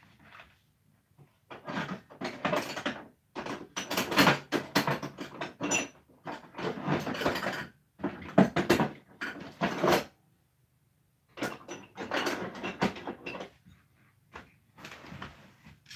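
Handling noise in several bursts of a second or two: objects being moved and rummaged through, clattering and knocking close to the microphone.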